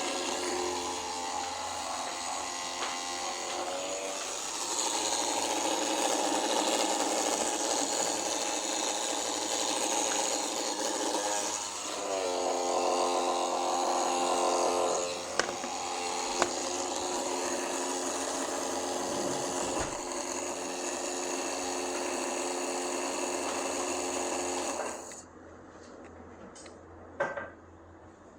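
Toshiba laptop cooling fan running with an abnormal whirring, gritty whine, the fan noise fault the laptop is in for repair over. Its pitch dips and climbs back about twelve seconds in, and it stops about twenty-five seconds in, leaving a few faint clicks.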